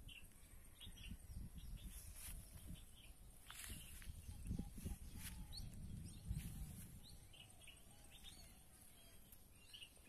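Faint rural field ambience: scattered short, high bird chirps, with a run of lower curved calls in the middle, over an uneven low rumble.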